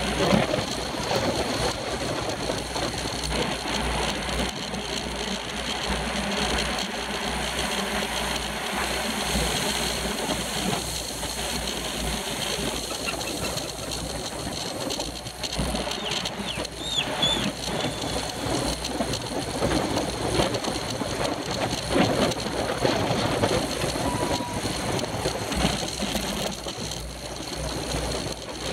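Bicycles racing in a pack, heard from a camera mounted on one of them: steady wind rumble on the microphone over the whir of tyres and drivetrains. A few brief high squeaks come a little past the middle.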